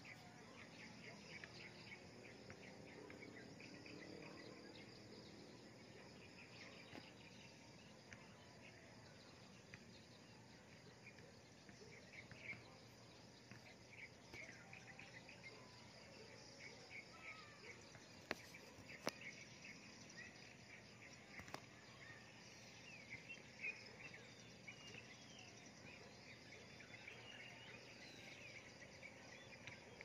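Faint outdoor morning ambience of birds chirping over a steady background of insects trilling, with two sharp clicks a little past the middle.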